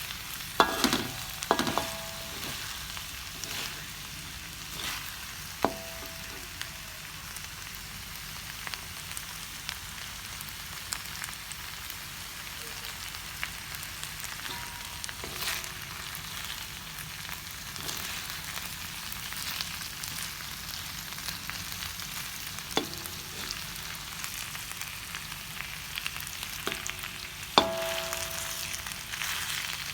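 Beef and potatoes sizzling in hot oil in a pan while being stirred. A metal utensil scrapes and clanks against the pan now and then, with ringing knocks about a second in and near the end.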